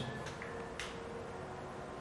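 Quiet room tone with a steady faint hiss and hum, broken by two soft clicks, about a third of a second in and just under a second in.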